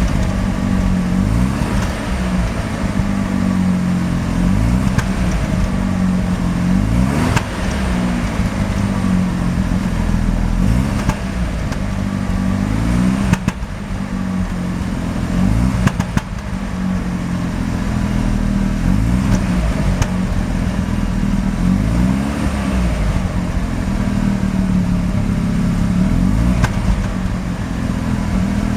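Mazda RX-7 FD's 13B twin-rotor rotary engine idling unevenly, its pitch wavering slightly, with a few sharp pops. This is the rough idle that the owner links to a misfire and very high CO readings.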